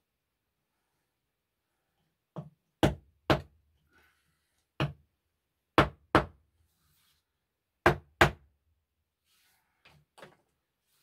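A series of heavy knocks, mostly in quick pairs a second or two apart, with a fainter pair near the end.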